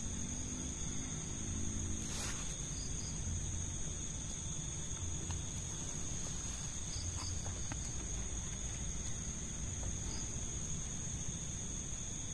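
A steady night chorus of crickets, a continuous high-pitched trilling, over a faint low rumble that swells now and then.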